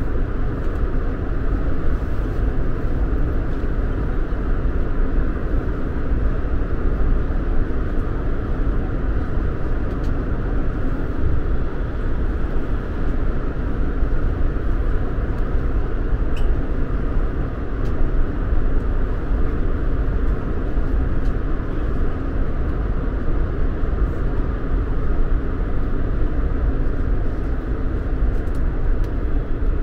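AREX all-stop commuter train running at speed, heard from inside the carriage: a steady, deep rumble of wheels and motors.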